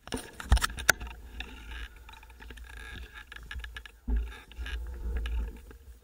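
Mountain bike rolling over paved town streets, heard from a camera mounted on the bike or rider: frequent small clicks and rattles from the bike, two sharp knocks near the start, and low wind rumble on the microphone that swells about four seconds in.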